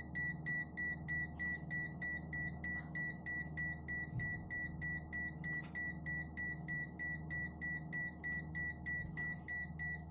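PC fan controller's alarm beeping in a fast, even train of short high beeps, about three a second, set off when the fans are turned down from full speed. A steady fan hum runs underneath.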